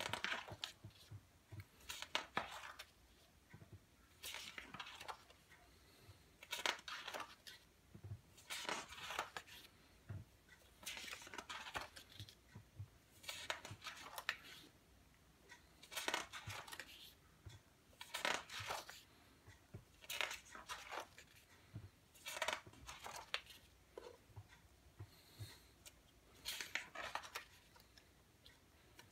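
Paper pages of a spiral-bound photo book being turned by hand, with a short rustle of paper about every two seconds.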